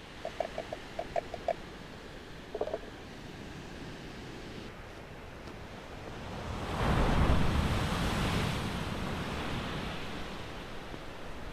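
Surf: a wave breaks and washes in, swelling about seven seconds in and slowly fading away. Near the start there is a quick run of light taps.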